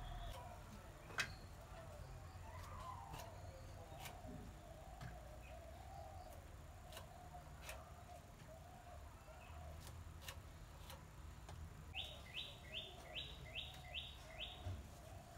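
Birds calling steadily, with a run of seven quick, evenly spaced chirps, about three a second, near the end. Light scattered clicks of okra pods being sliced on a fixed metal cutting blade, the sharpest about a second in.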